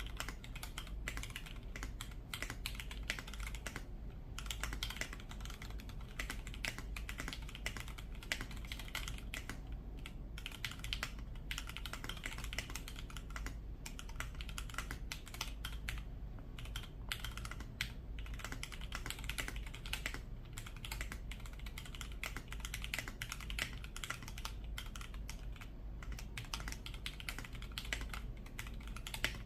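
Fast continuous typing on a custom mechanical keyboard with lubed and filmed Gateron Milky Yellow linear switches, GMK-profile keycaps and a two-layer tape mod, pausing briefly a few times.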